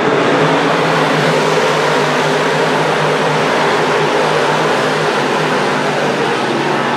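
A full field of 358 small-block V8 dirt modifieds at full throttle just after the start, many engines blending into one loud, steady sound.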